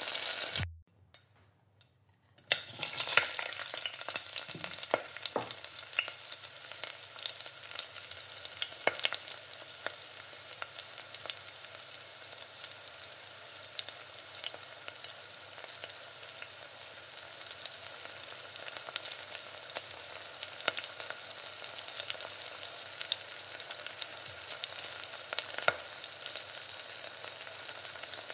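Chopped onion sizzling in oil in a stainless steel skillet, stirred and scraped with a spatula, with small sharp pops throughout. The sound drops out to near silence for about two seconds just after the start, then the frying carries on steadily.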